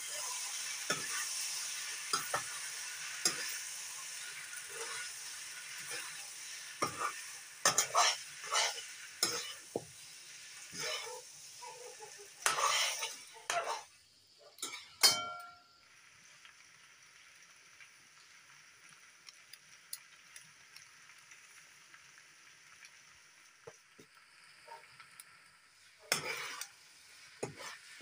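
Wheat-flour dumplings frying in a metal kadai, the oil sizzling while a metal spoon scrapes and clicks against the pan as they are stirred. About halfway through the sizzle dies down, with one sharp ringing clink, and the scraping picks up again near the end.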